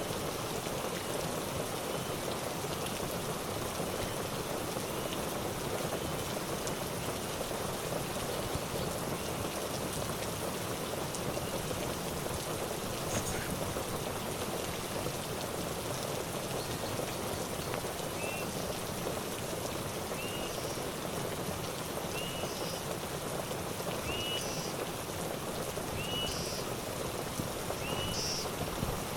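Steady rain falling. From about halfway through, a short high chirping call repeats about every two seconds above it.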